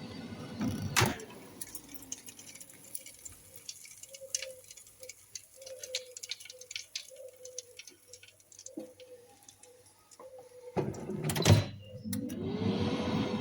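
Knocks and a run of small clicks, then a loud clatter near the end, followed by a hum that rises in pitch and holds steady.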